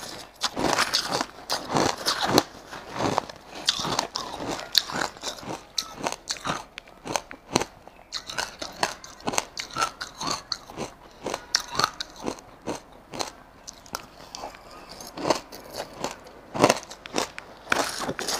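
Crushed ice being bitten and chewed right at a clip-on microphone: a dense run of sharp, crackling crunches, heaviest near the start and again near the end, mixed with a metal spoon digging into the ice in a plastic tub.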